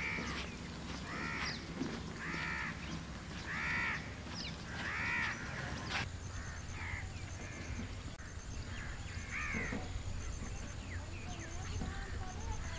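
A crow cawing over and over, about one caw every second and a bit for the first five seconds, then a few more spaced farther apart.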